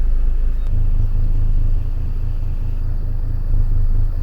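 A car engine idling: a low, steady rumble.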